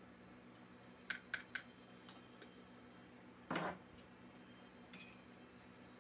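Light clicks and taps of small hard objects on the painting desk: three quick clicks about a second in, a short louder scuff a little past the middle, and one more click near the end, over a faint steady hum.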